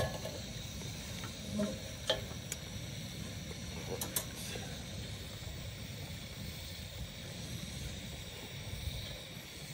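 Campy Gear 2-in-1 portable propane heater burning with a steady hiss, with a sharp click at the start and a few fainter clicks about two and four seconds in as its side control is worked.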